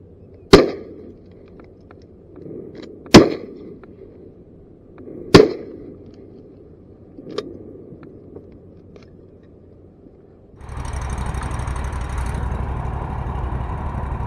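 Three loud shotgun shots about two and a half seconds apart, then a fainter report. About ten seconds in, a boat motor starts up and keeps running steadily.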